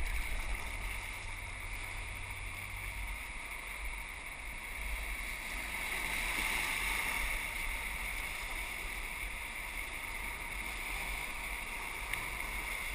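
Whitewater rapids rushing and splashing around an inflatable raft, with wind buffeting the microphone. The rush swells a few seconds in.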